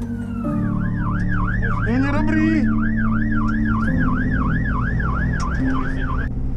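Fire engine siren heard from inside the cab. It goes from a slow wail into a fast yelp about half a second in, sweeping up and down about three times a second over the steady drone of the truck's diesel engine.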